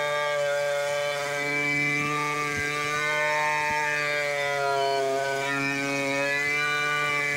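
Stihl chainsaw running steadily under load while ripping a log lengthwise along the grain. Its pitch sags a little about five seconds in, then recovers.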